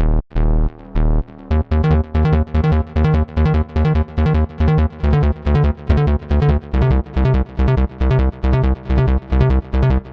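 Integrate virtual analog synthesizer playing a bass preset: a few longer low notes, then from about a second and a half in a steady run of short, punchy bass notes, about three a second.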